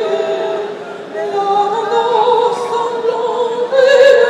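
Large arena crowd singing a chant together, many voices holding long notes, swelling louder near the end.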